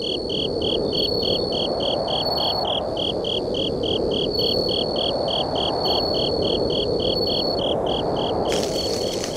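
Night insects chirping: a regular pulsed chirp about three times a second over a near-continuous high trill, with a steady rushing noise beneath. A short hissing rustle comes near the end.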